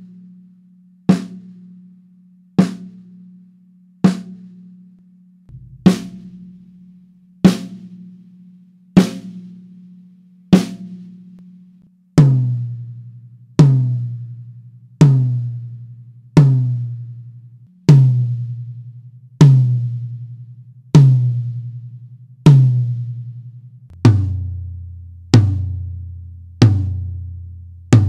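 Sonor Designer toms struck one hit at a time, about every second and a half, each stroke ringing out at a clear pitch. About twelve seconds in the hits move to a lower, louder tom, and about twenty-four seconds in to a still lower floor tom. The kit is close-miked with Shure PG-series drum mics and left unprocessed.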